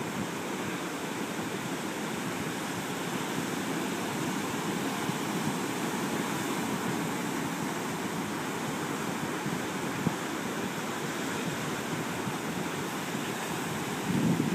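Ocean surf: a steady rush of breaking waves, with one brief click about ten seconds in.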